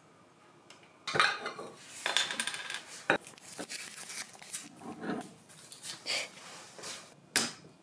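Tableware and a glass beer bottle clinking and knocking on a wooden table. A sharp knock comes about a second in, a quick run of clatter follows, and scattered clicks and a last sharp clink come near the end.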